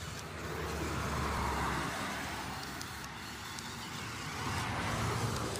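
Remote-control rock-crawler toy truck driving over snow, its small electric motor and gears whirring with a low hum, swelling louder about a second in and again near the end.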